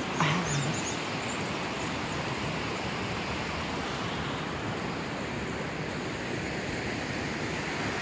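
Steady rushing of a rocky mountain stream, an even wash of water noise, with a few short high chirps near the start.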